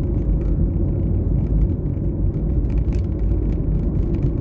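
Car driving along a road: a steady low rumble of engine and tyres, with a faint steady hum running under it.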